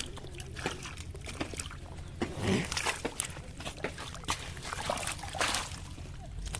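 Water splashing and sloshing in short bouts, with small knocks and clicks, and two louder splashes about two and a half and five seconds in.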